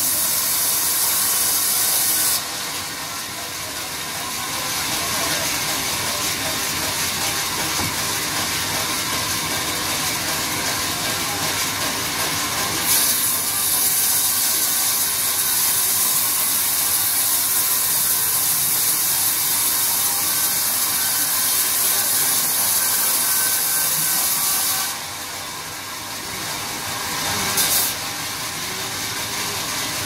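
Large sawmill band saw running steadily, with a loud high hiss while its blade rips lengthwise through a mahogany log: for the first two seconds or so, and again for about twelve seconds in the middle.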